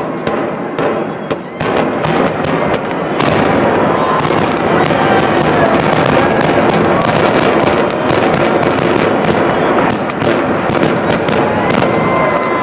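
Explosive demolition charges firing in a rapid crackling series as the power plant is blown down. The cracks are scattered at first, then from about three seconds in they come thick and louder, like a long string of firecrackers.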